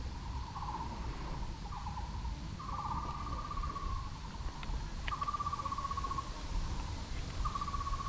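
An animal's repeated trilling call, about five calls, each a rapid pulsed trill lasting around a second and falling slightly in pitch, the later ones longer. A low rumble runs underneath.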